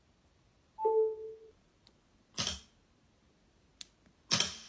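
iPhone system sounds: a short two-note chime falling from a higher note to a lower one about a second in, likely the tone for a charger being connected, then two sharp clicks like the lock/unlock click, one in the middle and one near the end.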